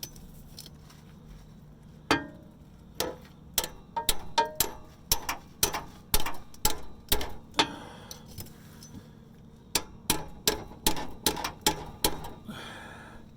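Hammer tapping on a steel exhaust clamp and pipe under a car: about two dozen sharp metallic taps with a short ring, in irregular runs, starting about two seconds in and stopping near the end. The taps drive the clamp onto the pipe so that its bolt threads stick out far enough for the nuts.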